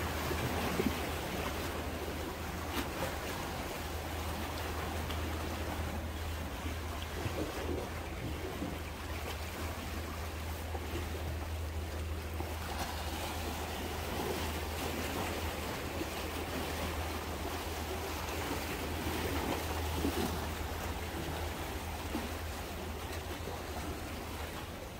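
Small waves from a calm sea washing against shore rocks and breakwater tetrapods, a steady surf wash with a low rumble beneath it.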